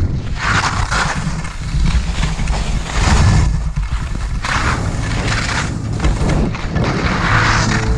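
Wind rumbling on a moving body-worn microphone while edges scrape through snow in a series of turns, a hissing scrape about every one to three seconds.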